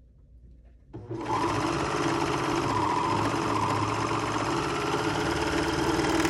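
A serger (overlocker) starts about a second in and runs steadily at speed, stitching and trimming a dress side seam.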